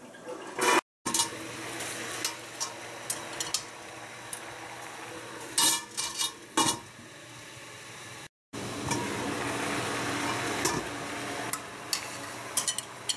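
A metal wok lid and a ceramic plate clink and clank as they are handled, with the loudest clanks a little past the middle. Underneath runs a steady hiss of water boiling under a steamer.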